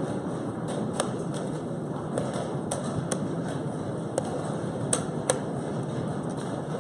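Sharp, separate clicks and taps of chess pieces being set down and a chess clock being pressed in a fast game, over steady room noise.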